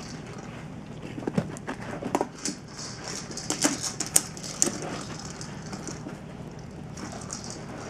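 Treat ball with kibble inside rattling and knocking as a dog noses and paws it across carpet. A quick run of clicks and knocks comes between about one and five seconds in.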